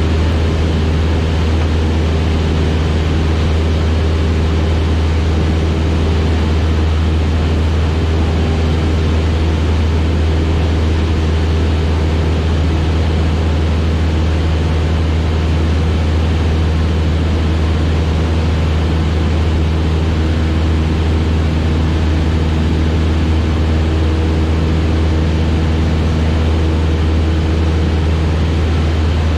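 Cessna 172RG Cutlass's four-cylinder Lycoming engine and propeller running steadily in cruise, heard inside the cabin as an unchanging low hum under an even rushing hiss.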